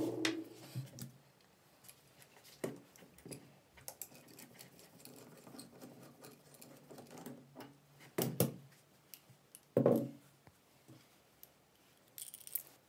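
Rusty steel parts of a 1930s IXION hand breast drill being handled and taken apart: scattered sharp knocks and clinks, two louder ones in the second half, with faint scraping and rubbing between. A short rattle of small metal pieces comes near the end.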